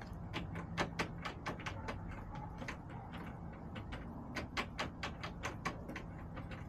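Hens pecking at hard surfaces close to the microphone: a quick, irregular run of sharp taps, several a second, over a low steady hum.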